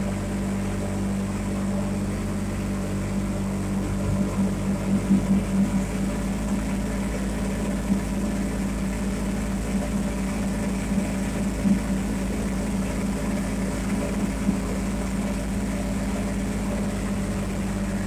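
Engine of a side-by-side off-road vehicle running steadily at cruising speed: an even drone, with a few brief swells about four to six seconds in and again near twelve seconds.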